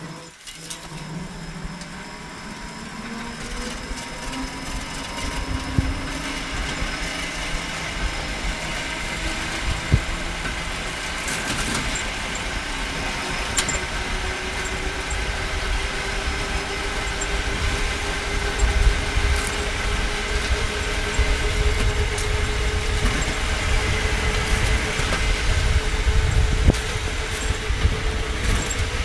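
Homemade battery-powered rail vehicle rolling along the track. Its electric motor whines, rising in pitch for the first few seconds as it picks up speed, then holds a steady whine. Under the whine, the rumble of the wheels on the rails slowly grows louder, with a few sharp clicks.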